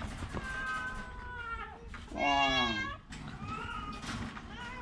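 Cat meowing several times: a long high meow, then a louder meow about two seconds in that falls in pitch, and two short meows near the end.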